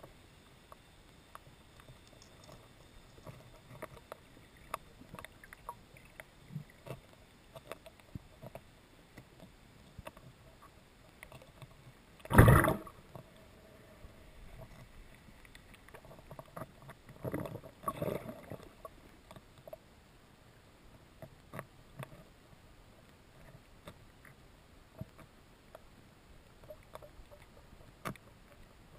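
Underwater recording: faint scattered clicks and ticks throughout, one loud short knock about twelve seconds in, and two smaller knocks a little over five seconds later.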